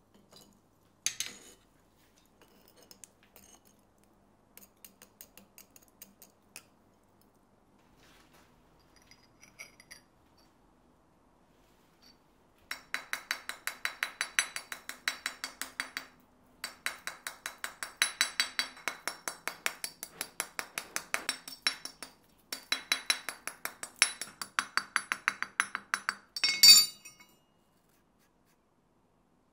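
Small hammer rapidly tapping the forged steel-pipe body of an oil lamp on the anvil, several light ringing metal-on-metal taps a second, to knock the crust of scale off after brazing. The taps come in three runs with short breaks and end with one louder clank; before them there are only a few scattered faint clicks.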